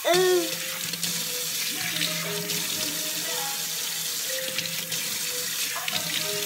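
A sink tap is turned on and water runs steadily into the basin; it starts suddenly and keeps an even rushing sound throughout.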